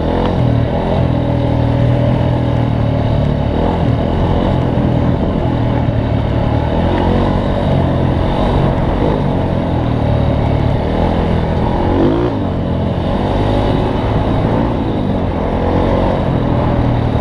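Off-road vehicle engine running while driving a rough dirt trail, its pitch rising and falling a few times with the throttle.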